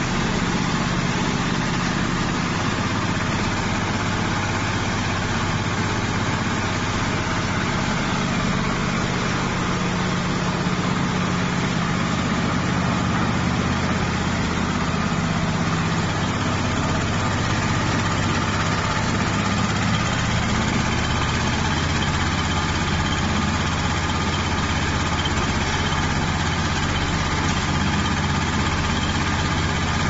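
The diesel engine of a JZC500 concrete mixer running steadily at low speed.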